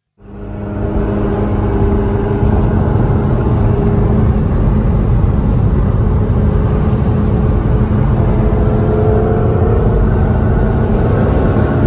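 McLaren 570S twin-turbo V8 with sport exhaust, heard from on board while driving, running steadily under light throttle. The engine pitch rises slowly in the second half, over a steady road rumble.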